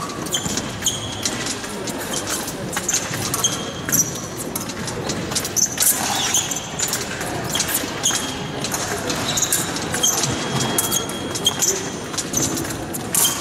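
Fencers' footwork during an épée bout: shoes stamping and squeaking on the piste, with frequent sharp knocks and short high squeaks.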